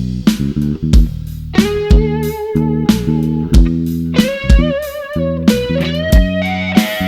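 Live band playing an instrumental break: an electric guitar solo of held notes with vibrato that climb higher about two-thirds of the way in, over bass guitar and a steady kick drum.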